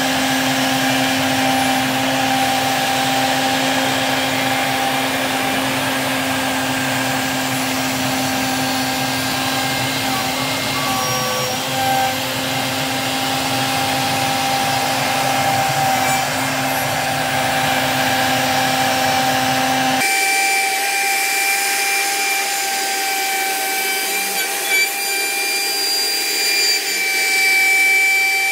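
CNC router spindle running steadily as a surfacing bit fly-cuts across a hardwood slab to flatten it, with the dust extraction running. About two-thirds through, the sound changes abruptly: the low hum drops away and a higher whine comes to the fore.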